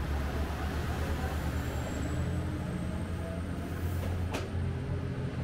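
Kyoto Tango Railway 'Tango no Umi' diesel express train running along the platform and away, with a steady low engine drone and wheel noise. A single sharp click sounds about four seconds in.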